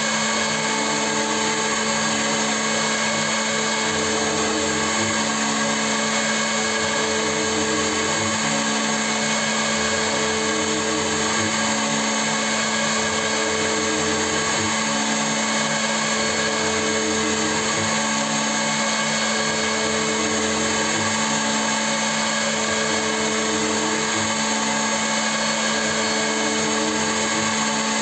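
CNC milling machine running: a steady motor whine, with a higher tone that comes and goes every second or two.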